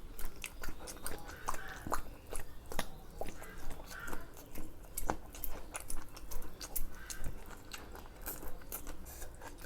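A person chewing food with the mouth close to the microphone: a steady rhythm of wet smacks and sharp crunchy clicks, about two to three a second.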